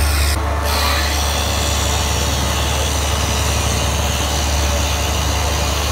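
Broom-handle rounding machine running steadily, a constant low motor hum with a hiss above it, as a wooden pole is fed through its rollers and cutter head.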